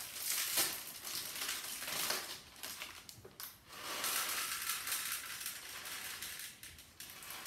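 Crinkling of a small plastic packet of popcorn kernels and the kernels rattling as they are poured into a small plastic measuring cup, in irregular bursts with a longer pour about halfway through.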